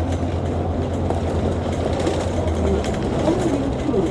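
Interior of a moving double-deck diesel bus: the engine runs with a steady low drone that eases off about two-thirds of the way through, over road and body rumble.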